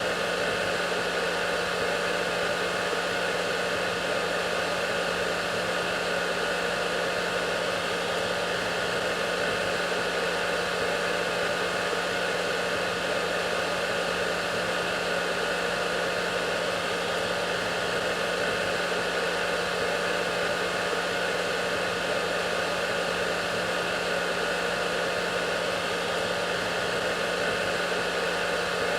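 Hair dryer running steadily: an unchanging blowing hiss with a low motor hum and faint steady whine tones.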